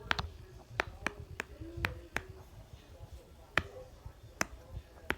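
Silicone pop-it fidget toy bubbles being pressed, popping one after another in about ten sharp, irregularly spaced pops.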